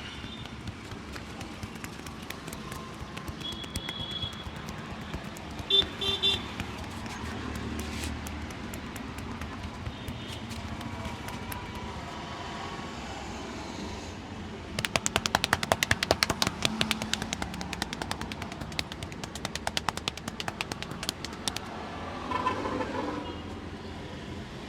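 Head massage by hand: a fast run of sharp slaps and taps on the head lasting several seconds in the second half. Street noise behind it, with two short vehicle horn toots early on.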